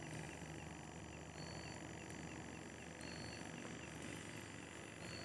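Faint night insect chorus: steady high-pitched trilling with a short chirp repeating at an even pace and a few brief higher notes now and then.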